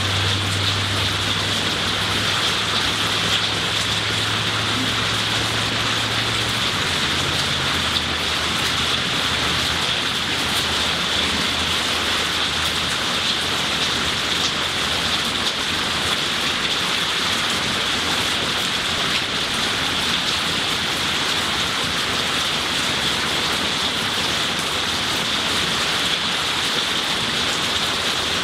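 Steady heavy rain pouring down onto a leafy tree, garden plants and lawn: an even, unbroken hiss. A faint low hum underneath dies away in the first half.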